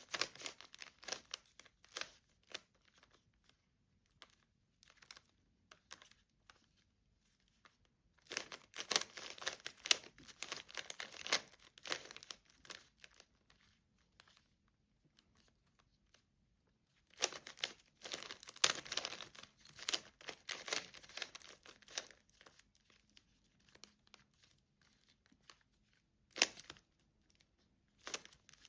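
A plastic Rubik's Cube being turned quickly by hand: fast clicking and rattling of its layers in spells of a few seconds, with quiet pauses between them.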